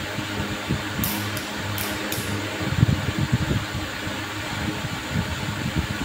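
Steady hum and air noise of a running ceiling fan, with a few low thumps near the middle from the phone being handled and carried.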